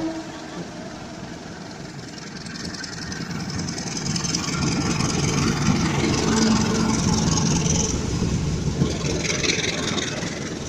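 The last note of a diesel locomotive's horn dies away at the very start. Then a train's rumble builds for several seconds and fades again near the end.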